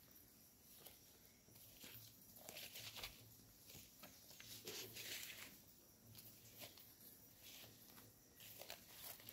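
Faint footsteps and rustling as someone walks through forest undergrowth, leaves and twigs crackling irregularly, busiest a few seconds in.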